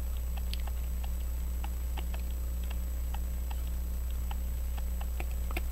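Faint, irregular small metallic clicks of a watchmaker's screwdriver and tweezers working a stubborn screw on a brass watch movement, over a steady low hum.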